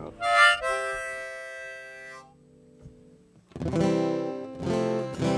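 A harmonica plays a short wavering note, then holds a steady note for about two seconds. After a brief pause an acoustic guitar strums three chords that ring on.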